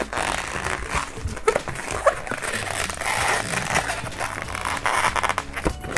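Long white latex modelling balloon squeaking and rubbing as hands twist it into a bubble, with a few short squeaks.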